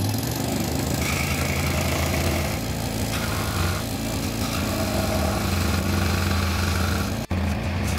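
A power tool's motor running steadily under load, cutting out for an instant about seven seconds in.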